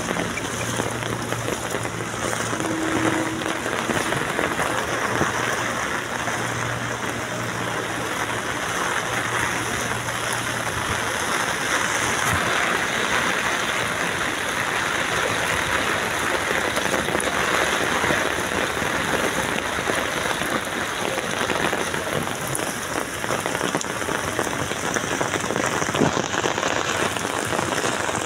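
Heavy monsoon rain pouring onto a flooded street, a steady dense hiss of drops striking standing water. A low steady hum sits underneath for about the first ten seconds.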